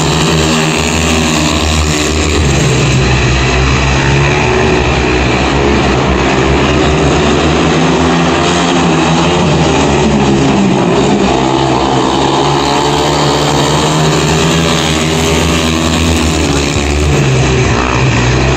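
Several speedway bikes racing flat out, their 500cc single-cylinder methanol-fuelled engines running loud and continuous, the pitch rising and falling as the riders go through the bends and down the straights.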